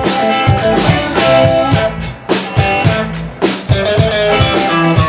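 Live blues band playing an instrumental stretch between sung lines: electric guitar, electric bass and drum kit keeping a steady beat.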